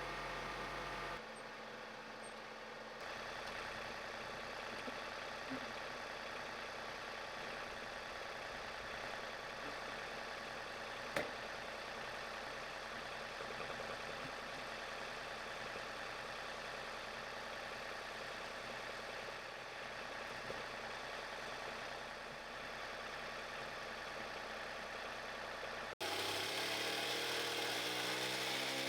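An engine running steadily, heard across several cut-together clips. After a cut near the end, it rises in pitch as it speeds up.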